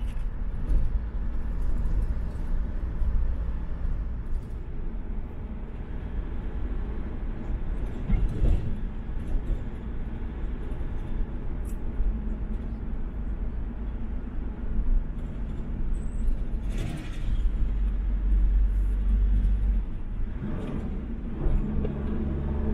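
Car being driven: steady low rumble of the engine and tyres on the road, with a few brief knocks along the way.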